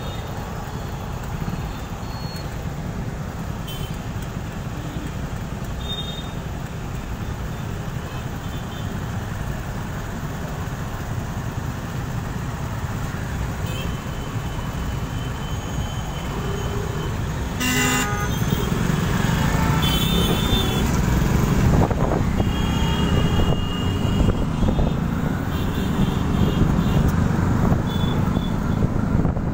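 Street traffic running steadily, with vehicle horns tooting; one short loud honk about eighteen seconds in, and the traffic gets louder after it.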